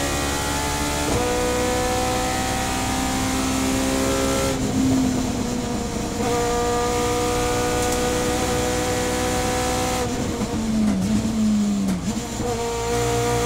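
Subaru BRZ race car's two-litre flat-four boxer engine with individual throttle bodies and a 4-1 exhaust, heard from inside the cockpit running hard under throttle. It comes off power around four and a half seconds, pulls strongly again from about six seconds, then goes off the throttle as the car slows around ten seconds before accelerating again near the end.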